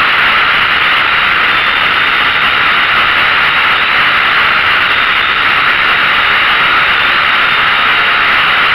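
Small quadcopter drone's motors and propellers running steadily: a loud, even whirring hiss with a faint high whine that wavers slightly in pitch.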